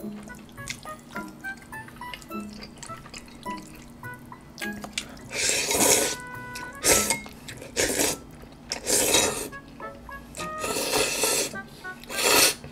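Jjolmyeon noodles in spicy sauce being slurped loudly from a bowl, about six slurps starting about five seconds in, some short and some drawn out for about a second. Quiet background music plays underneath.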